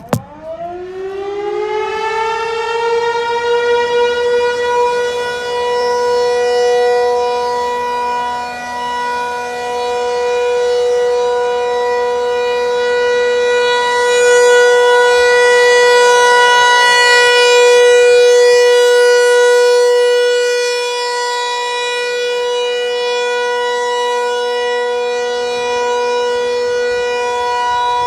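Federal Signal 508 outdoor warning siren winding up from silence, its pitch rising over about two seconds to a steady single tone, sounding its scheduled monthly test. The loudness swells and dips slowly as it runs.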